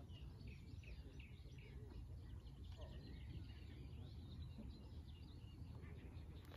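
Faint outdoor birdsong: a run of short repeated chirps in the first second and a half, then scattered chirps and trills, over a steady low rumble.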